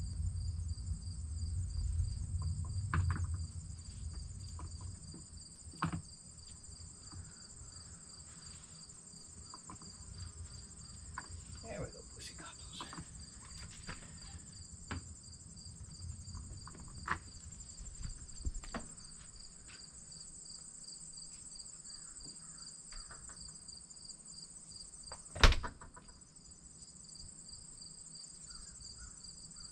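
Steady chorus of chirping insects, a continuous finely pulsing high trill with a thinner hiss above it. A single sharp knock stands out about 25 seconds in, louder than everything else.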